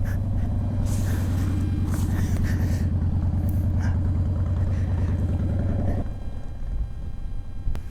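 Motorcycle engine idling steadily, then cutting off about six seconds in.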